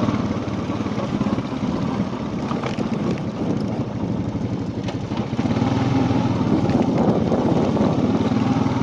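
Vehicle engine running steadily while driving across rough farm ground, heard from on board. It gets a little louder about five seconds in.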